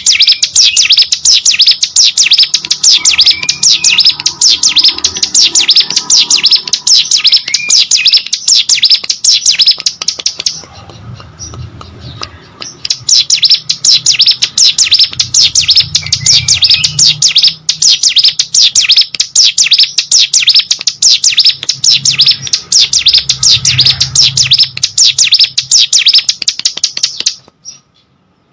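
Ciblek gunung (a mountain prinia) singing fast and continuously: a dense, rapid run of high, sharp chirping notes. The song breaks off for a couple of seconds about a third of the way through, then resumes, and stops shortly before the end.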